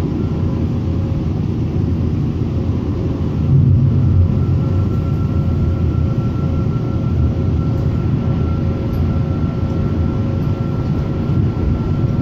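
Steady rumble of a light rail car in motion, heard from inside the car, with a faint high steady whine running through it. The rumble swells briefly about four seconds in.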